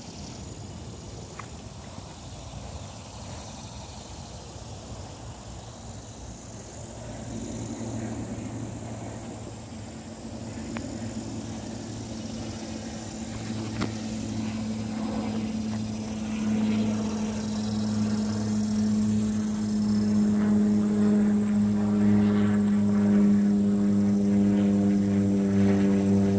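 A motor's drone with a steady low hum, growing steadily louder through the second half as it comes closer.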